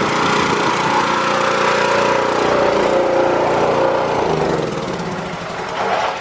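Small gasoline engine of a pressure washer running steadily; about four seconds in its pitch drops and it slows, the level falling away.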